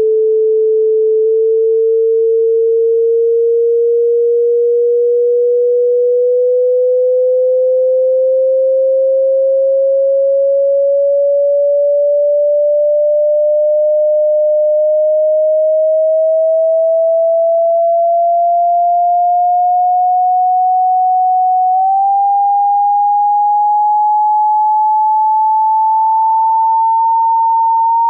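A single loud pure tone, its pitch climbing slowly and smoothly through the middle range, with a small step up about 22 seconds in. It is a speaker-cleaning tone, played to shake water or dust out of a speaker that has started to buzz.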